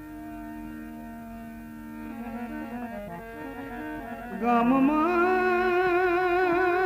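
Indian devotional bhajan music with no sung words: steady held notes at first, then about four and a half seconds in a loud sustained melody with a strong wavering vibrato slides up in pitch and holds.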